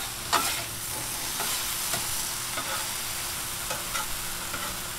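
Diced raw potatoes frying in oil on a Blackstone flat-top steel griddle, sizzling steadily, while a metal spatula scrapes and taps across the griddle surface as the potatoes are turned and mixed.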